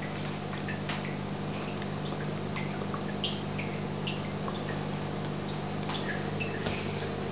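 Pot of fish stock bubbling on the stove: scattered small pops and blips over a steady low hum.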